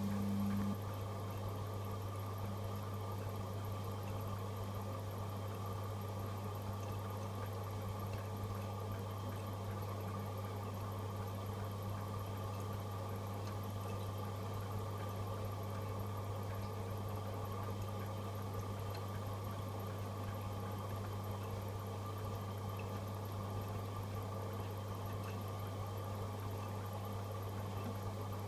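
AEG Öko-Lavamat 85739 washing machine running with a steady low hum. A higher hum drops out just after the start.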